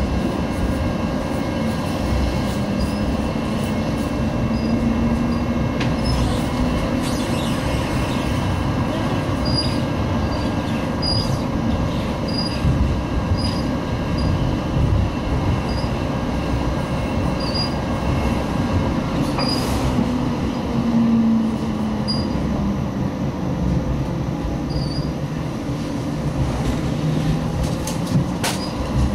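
Sheffield Supertram tram heard from inside the car while running on street track: a steady rumble of wheels on rail with a low motor whine that shifts in pitch as the speed changes.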